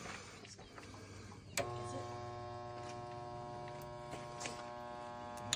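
Electric welder buzzing with a steady mains hum for about four seconds while making a spot weld on the car's sheet metal. It switches on with a click and cuts off suddenly.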